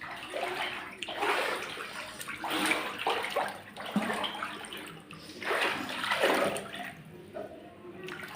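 Floodwater inside a room splashing and sloshing, coming in several surges that swell and fade.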